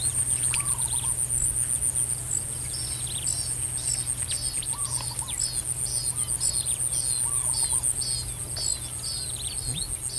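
A pondside insect chorus makes a steady, rapid high-pitched pulsing trill throughout. Over it, a bird repeats short downward-slurred calls about twice a second from about two seconds in, with a few lower arched notes between them. A low steady hum sits underneath.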